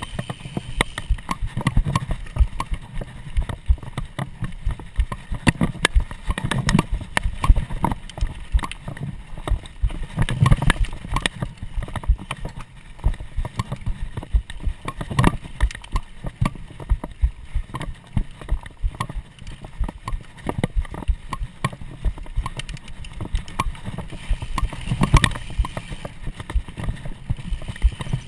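Mountain bike ridden fast over a dirt forest trail, heard from a camera riding on the bike or rider: a constant irregular clatter of knocks and rattles as it hits bumps, over tyre noise and a low rumble.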